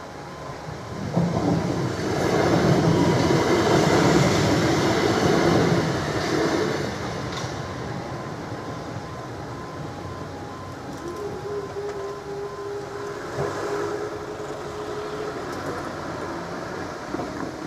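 A Southeastern Class 375 electric multiple unit passes over the level crossing, loudest from about one to seven seconds in and then fading. A quiet two-tone crossing alarm sounds under it and stops about nine seconds in. A steady hum follows from about eleven seconds in as the barriers rise.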